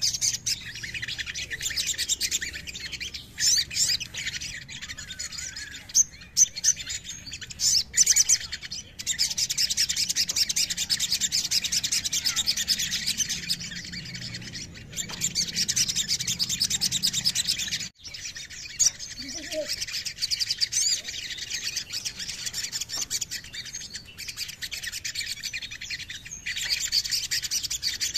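Small songbirds of the sunbird family singing: long runs of rapid, high-pitched chirps and trills, broken by short pauses about nine and eighteen seconds in.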